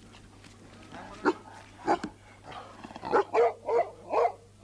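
Central Asian Shepherd Dog (Alabai) barking: a couple of single barks, then four barks in quick succession in the second half.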